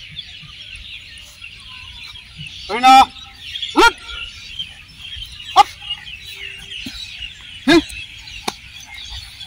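Steady high insect chorus, with four loud short calls that rise and fall in pitch: the first about three seconds in, the last near the end.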